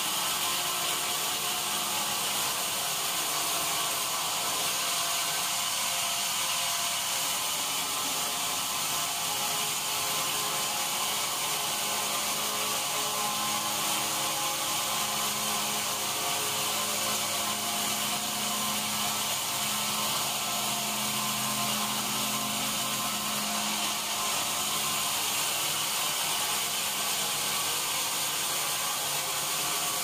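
Large sawmill band saw cutting lengthwise through a mahogany log: a steady sawing noise, mostly high, over the hum of the machine.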